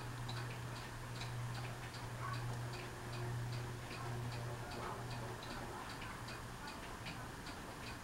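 Hampton Bay Miramar ceiling fan running on medium speed: a steady low motor hum with an even, light ticking about two and a half times a second. It is a little noisy.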